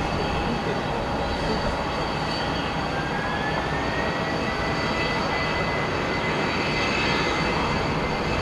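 Boeing 767-300 twin-engine jetliner on its take-off roll: steady jet engine noise, with a whine that rises in pitch about three seconds in and then holds as the engines spool up.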